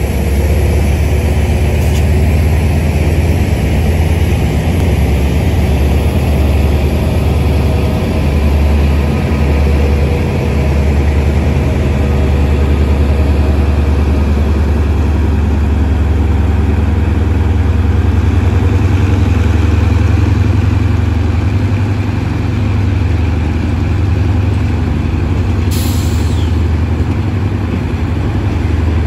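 SRT Hitachi diesel-electric locomotive 4511 pulling a long passenger train away from a station, its diesel engine running loudly with a deep, steady drone as it comes up and passes, then the carriages rolling by. Near the end there is a brief sharp hiss.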